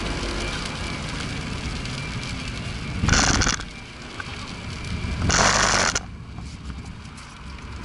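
Onboard sound of an Abarth on track, then two short loud harsh crashing noises about two seconds apart as the car crashes. The running noise drops after the first crash.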